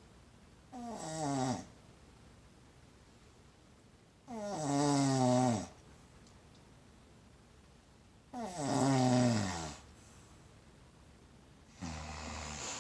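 Snoring in slow, regular breaths: four snores about four seconds apart, each a pitched snore that slides down in pitch as it goes.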